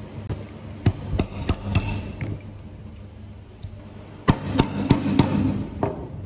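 Mallet blows on a pronged stitching chisel, driving it through belt leather to punch stitch holes: two runs of four quick knocks, about three a second, a few seconds apart.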